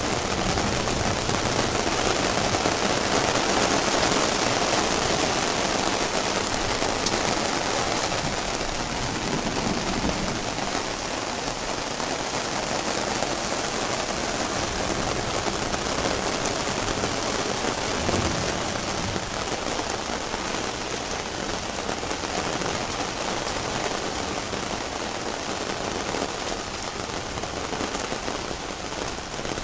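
Heavy rain pouring steadily, a dense even hiss of falling drops, a little louder in the first few seconds.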